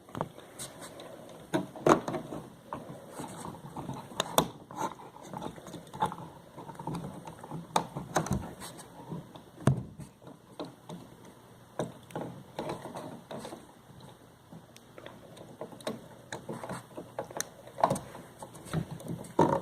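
Irregular small clicks, taps and scrapes of an electrical outlet and its wires being handled as the wire ends are hooked onto the terminal screws. A few sharper knocks stand out.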